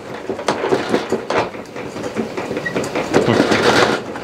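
Hand-cranked four-frame stainless steel honey extractor spinning, its drum and gearing rattling in a repeated clatter. The machine is not anchored and shakes on the soft ground as it turns.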